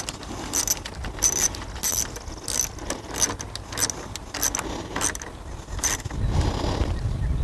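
Socket ratchet clicking in short bursts, about every two-thirds of a second, as it is swung back and forth to tighten the 10 mm nut on a car battery's positive terminal clamp. A low rumble comes in near the end.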